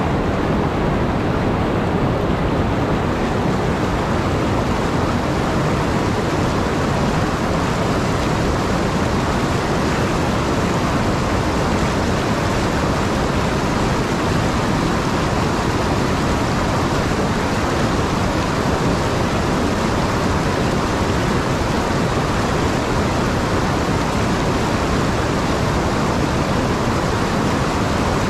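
River water pouring over a low dam and churning into whitewater over the rocks below: a loud, steady, unbroken rush.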